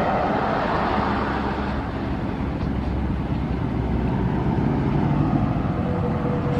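Steady engine noise from passing vehicles or aircraft. The broad roar fades over the first couple of seconds, and a steady hum sets in near the end.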